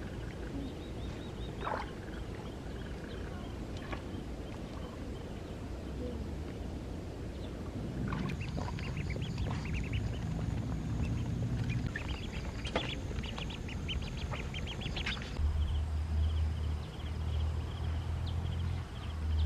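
Ducks quacking in a quick run of calls over several seconds, followed near the end by a low steady hum.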